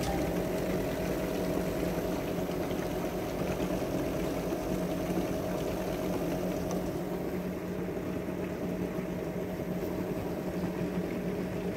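Small piston air compressor of a nebulizer running with a steady hum.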